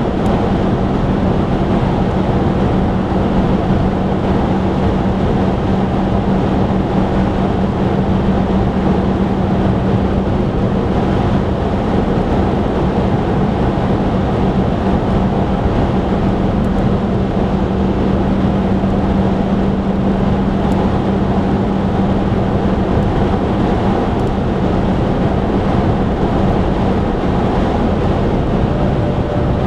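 Steady cabin noise of a car driving at motorway speed: tyre and wind noise with a steady low engine drone that drops lower near the end.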